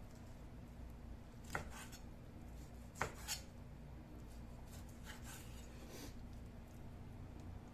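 A few scattered, irregular knife strokes on a cutting board, about five sharp knocks, the loudest two about three seconds in, over a low steady hum.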